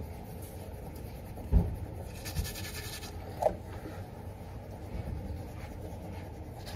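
Teeth being brushed with a small toothbrush: a steady scratchy scrubbing, with a sharp knock about a second and a half in and a smaller one near the middle.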